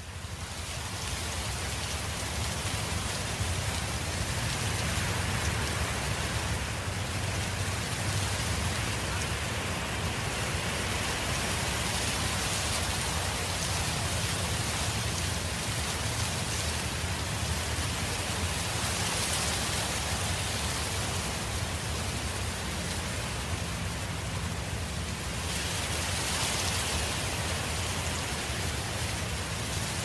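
Wind blowing through garden foliage in gusts: an even rushing that swells and eases every few seconds over a low rumble, fading in at the start.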